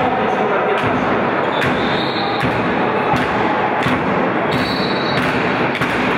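Crowd noise filling an indoor sports hall, with irregular sharp thuds of a handball bouncing on the court floor.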